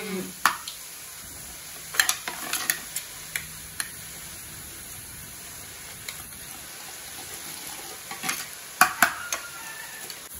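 Gram-flour boondi batter dripping through a perforated spoon into hot oil in a kadai, frying with a steady sizzle. Sharp metal clinks of the ladle against the perforated spoon come in a cluster about two to four seconds in and again near the end.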